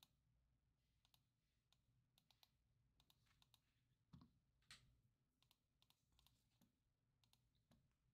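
Near silence, with faint, scattered clicks from a computer keyboard; two slightly louder clicks come a little past four seconds in.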